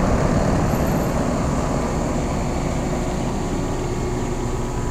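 Rheem Classic 5-ton straight-cool central air-conditioner condensing units running: a steady rush of condenser fan air over a constant compressor hum.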